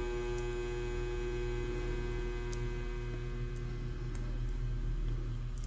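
Steady electrical mains hum, a constant buzzy drone made of many tones, with a few faint ticks.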